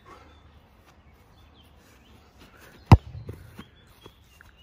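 A football kicked on the volley: one sharp thump about three seconds in, followed by a couple of softer thuds.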